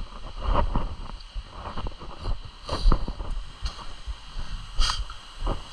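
Scattered sharp clicks and knocks over a fluctuating low rumble like wind buffeting the microphone, with the strongest knocks about three and five seconds in.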